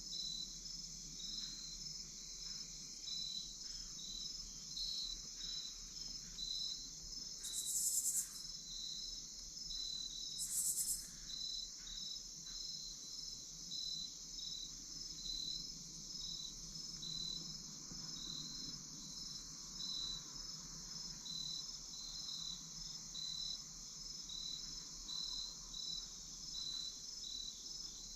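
Field insects calling: a steady high buzz with a cricket-like chirp repeating about twice a second. Two brief, very high-pitched hissing bursts stand out about eight and eleven seconds in.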